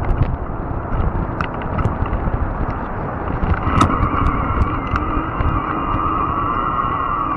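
Fat-tire electric bike riding over rough trail ground: a steady rumble from the tyres and wind on the microphone, with scattered sharp clicks. About three and a half seconds in, the electric motor's steady whine comes in and holds.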